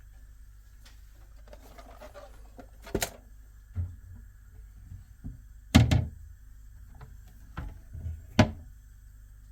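A series of sharp knocks and dull thunks of objects being handled and set down, with a little rustling early on and the loudest knock about six seconds in.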